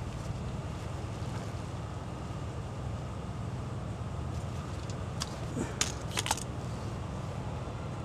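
Steady low background hum, with a few short sharp clicks and ticks about five to six seconds in from gloved hands working the CAN bus wires at a pickup's transmission control module connector.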